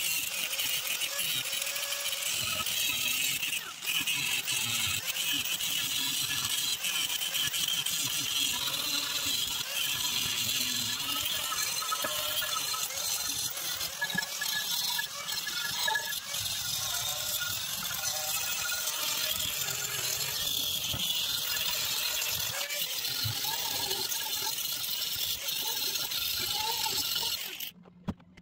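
Electric angle grinder with an abrasive disc grinding paint and rust off a steel bumper, a steady high grinding noise that cuts off sharply near the end.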